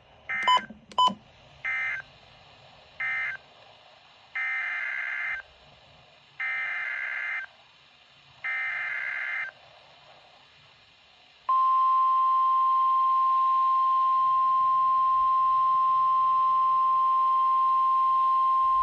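Emergency Alert System digital data bursts on a weather radio broadcast: a few short warbling bursts, then three longer bursts of about a second each. About eleven seconds in, a loud steady single-pitch alert tone begins and holds: the NOAA Weather Radio 1050 Hz warning alarm tone that announces a new warning.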